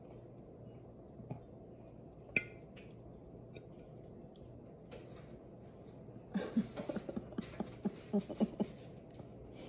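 A single sharp click, then a quick run of about a dozen light knocks and rattles lasting a little over two seconds.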